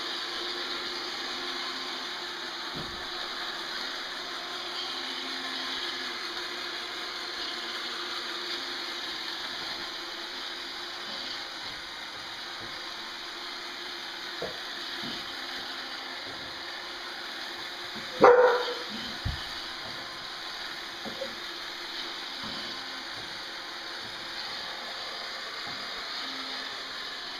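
iRobot Roomba 780 robot vacuum running, a steady even whirring hiss from its vacuum motor and brushes. About 18 seconds in, a dog gives a single short, loud bark.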